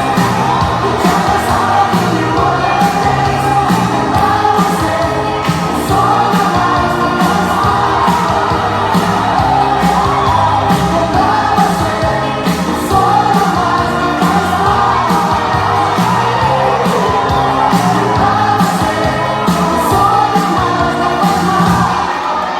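Upbeat pop dance music with a steady beat, a bass line and a lead vocal singing.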